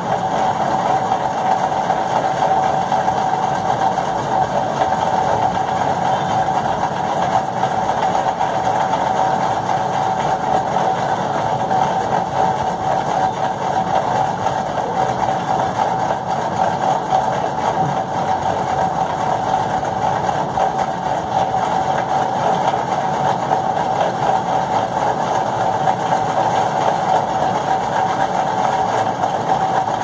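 A steady machine drone with a constant hum, unchanging throughout.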